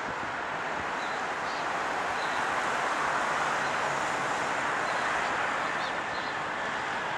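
Electric train running at speed: a steady rushing rail noise that grows a little louder, with a faint whine coming in near the end.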